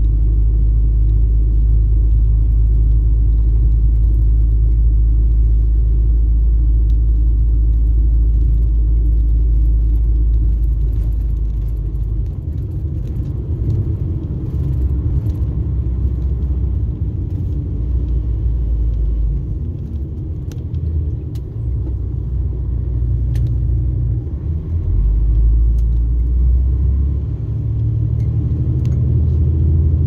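Mercedes-Benz 2436 coach's diesel engine running under way, heard inside the passenger cabin as a deep rumble. It holds steady for about the first twelve seconds, then rises and falls as the load changes, with a few faint clicks a little past the middle.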